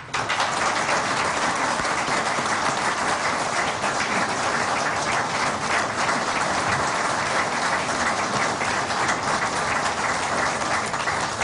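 Audience applauding, a dense steady clapping that starts all at once and thins out near the end.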